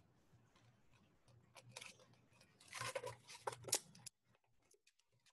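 Duct tape being pulled off the roll and torn off by hand: two short rasping spells, the second longer, with sharp crackles.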